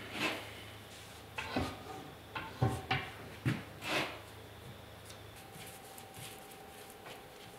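Wooden boards being handled on a wooden workbench: a series of short knocks and scrapes of wood on wood in the first four seconds, then only faint workshop background.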